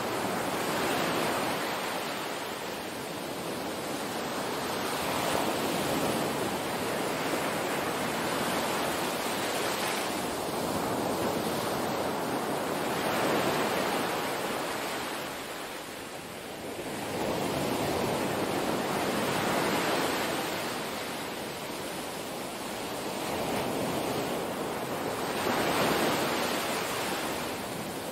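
Small waves breaking and washing up on a sandy beach, the surf swelling and easing every few seconds.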